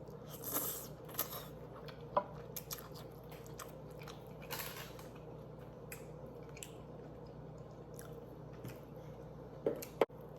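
Close-miked chewing of vegan banana-blossom 'fish': irregular wet mouth smacks and clicks, with a few sharper ticks.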